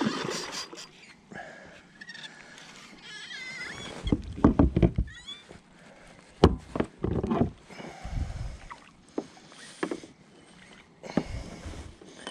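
Water splashing and irregular knocks against a kayak as a big hooked carp thrashes and is landed alongside. The loudest bouts come about four to five seconds in and again a couple of seconds later.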